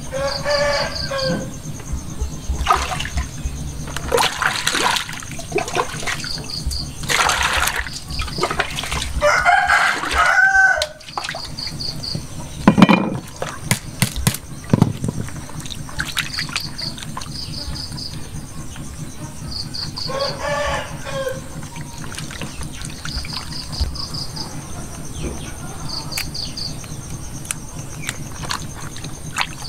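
A rooster crowing three times, about ten seconds apart. Between the crows, water sloshing and splashing as a whole fish is rinsed and rubbed by hand in a basin, with one sharp knock about 13 seconds in.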